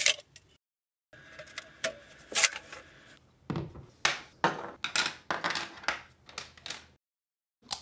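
Handling sounds of a clear plastic cereal container and 3D-printed plastic parts: a run of short clicks, taps and knocks in quick clusters, broken by abrupt silent gaps.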